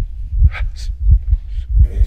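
Music soundtrack with a deep, slow bass thump about every half second, with faint breathy, whispery sounds over it.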